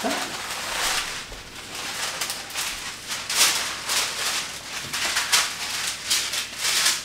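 Irregular rustling and scraping noises in short uneven bursts, as of things being handled.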